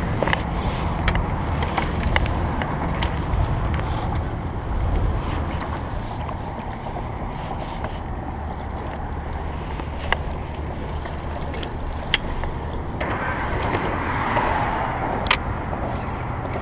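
Boat motor running steadily, with wind rumbling on the microphone and a few light clicks.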